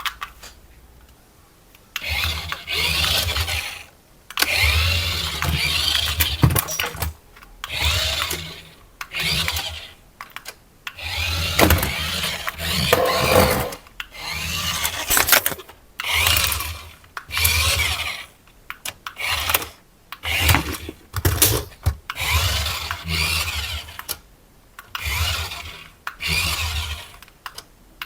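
Small electric motor of a remote-control toy running in repeated bursts of a second or two, stopping and starting again, as the toy is driven.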